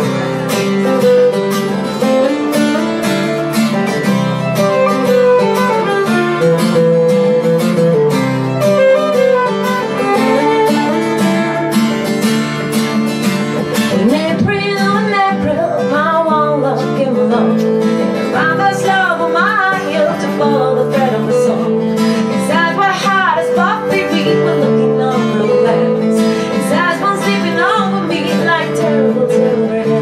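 Two acoustic guitars, picked and strummed, play a folk song's introduction; about halfway through, a woman's lead vocal comes in over them.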